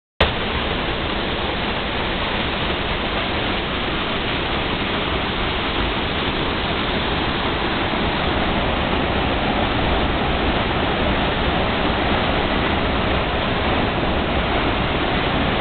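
Fast, muddy water rushing down a small rocky waterfall and cascade, a loud steady rush.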